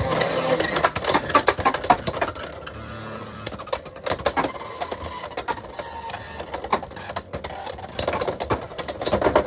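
Two Beyblade X spinning tops, Scorpio Spear 9-60 Gear Point and Phoenix Wing 7-70 Point, whirring on a plastic stadium floor and clashing, with rapid clicks and clacks of collisions throughout. A burst of louder clacks near the end comes as Scorpio Spear knocks Phoenix Wing out of the stadium.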